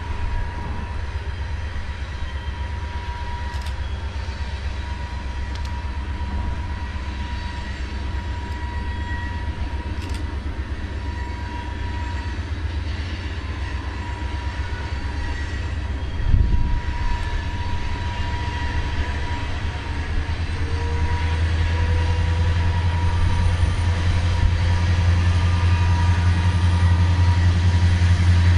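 Approaching CSX diesel freight locomotives, an EMD SD70MAC leading a GE CW40-8, heard from a distance as a low engine rumble that grows louder over the last several seconds. There is a single low thump about halfway through.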